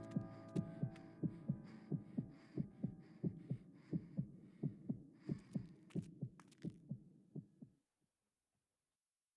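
Closing soundtrack: a steady low thumping pulse, like a heartbeat, about three beats a second, while a held chord dies away in the first second or two. The pulse fades gradually and then stops abruptly, leaving silence.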